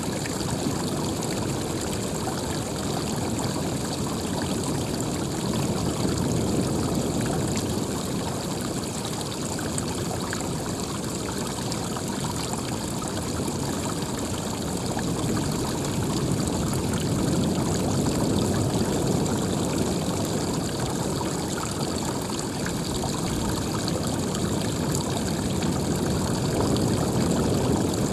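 Running water flowing steadily, rising and falling slightly in level.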